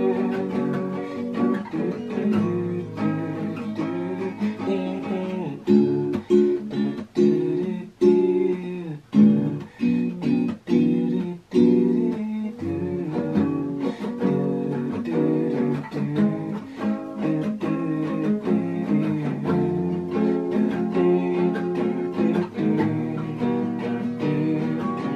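Nylon-string classical guitar being strummed, chords played in a steady rhythm. In the middle, several chords are struck one at a time, each fading before the next.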